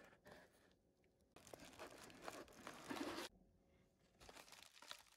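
Plastic bubble wrap crinkling as a wrapped package is lifted out of a cardboard box and handled: a brief rustle at the start, a louder stretch of crinkling for about two seconds from the middle, then softer crinkling near the end.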